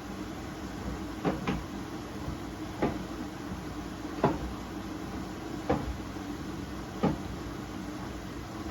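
Hoover H-Wash 600 front-loading washing machine running a wash, its motor humming steadily. A short thump comes about every second and a half as the drum turns, the first one doubled.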